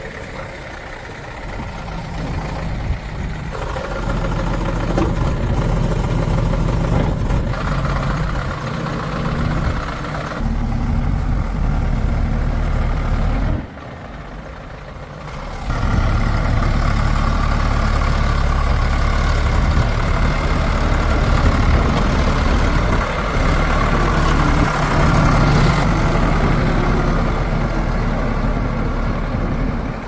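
Diesel engines of a JCB 3DX backhoe loader and farm tractors running steadily under work, the sound changing abruptly several times, with a short quieter stretch just after the middle.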